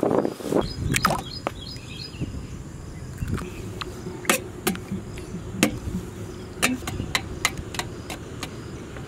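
A knife beating raw eggs in a stainless steel bowl, the blade clinking irregularly against the metal from about four seconds in, with birds chirping near the start.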